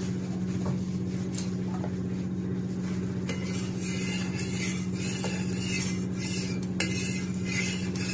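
A metal spatula scraping across a hot tawa, spreading refined oil, in repeated strokes from about three seconds in, over a steady low hum.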